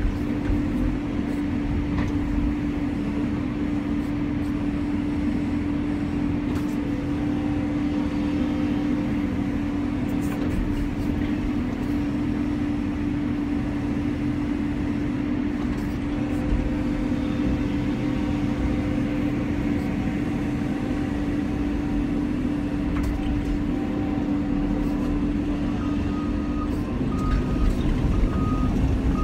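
Cat 320 excavator's diesel engine running steadily, heard from inside the cab as a constant hum and low rumble. Near the end a warning alarm starts beeping about once a second, the travel alarm that sounds while the excavator tracks.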